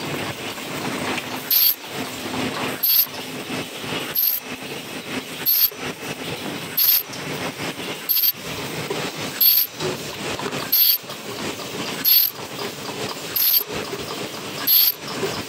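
Double-wall paper cup sleeve machine running steadily, with a short, high hiss repeating in an even rhythm about every 1.3 seconds.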